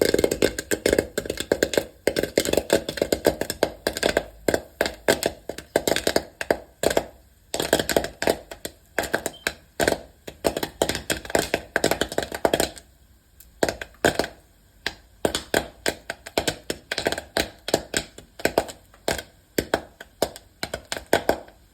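Popcorn kernels popping: a quick, irregular run of sharp cracks, several a second, with a brief lull just past the middle.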